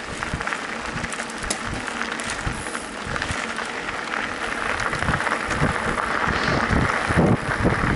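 Mountain bike rolling along a dirt trail: a steady rushing hiss of tyres on loose ground and wind on the microphone, with irregular low thumps, getting louder near the end.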